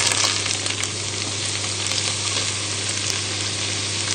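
Freshly added chopped vegetables (carrots, onion, garlic and mushrooms) sizzling steadily in hot butter and oil in a casserole pot on the hob.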